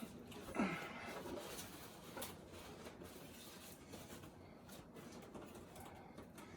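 Faint rubbing and rustling of packaging while a heavy statue is handled and lifted out of its box, with a few soft ticks. About half a second in there is a brief, louder low sound that slides down in pitch.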